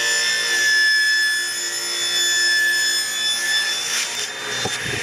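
Table saw running with a steady high whine as a wooden board is fed past its blade, with a couple of short knocks near the end.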